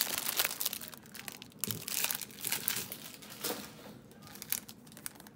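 Foil wrappers of Digimon Card Game BT01-03 booster packs crinkling as they are handled, densest in the first second, then in short scattered crackles.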